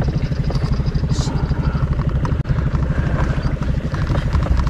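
Small boat's outboard motor idling steadily, a low, fast, even pulsing.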